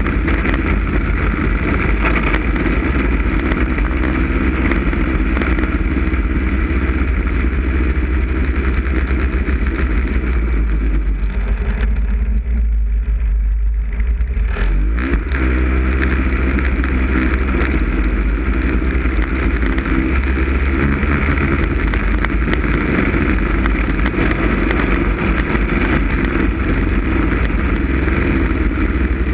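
Snowmobile engine running under throttle while riding over bare lake ice. About eleven seconds in the engine eases off for a few seconds, then revs back up.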